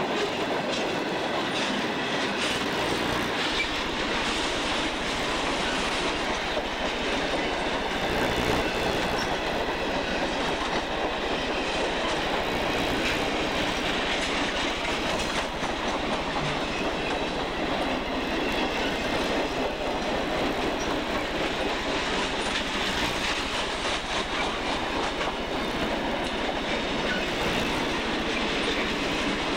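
Freight cars of a long train rolling past at close range: a steady rumble of steel wheels on the rails, with a continuous clickety-clack of wheels crossing rail joints.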